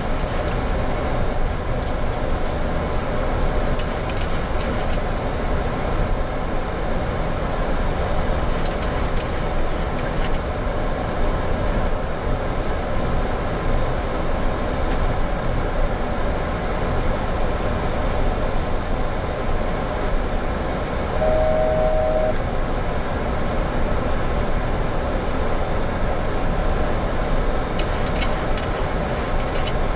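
Steady rush of airflow and air-conditioning noise in a Boeing 737-800 cockpit during the approach descent. A little past two-thirds of the way through, a single steady electronic tone sounds for about a second.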